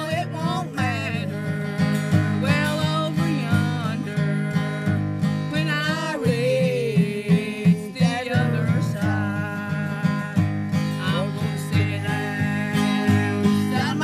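Elderly woman singing to her own acoustic guitar, strumming chords in a steady rhythm under the sung melody.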